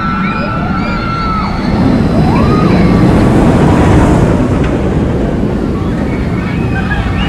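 Roller coaster train rushing along steel track, a steady rumbling roar with rushing wind that swells to its loudest a few seconds in. A few brief high gliding tones sound above it.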